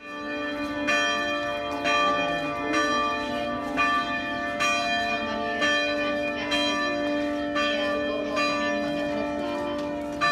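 Church bells ringing, a new stroke about once a second, each ringing on into the next at several different pitches.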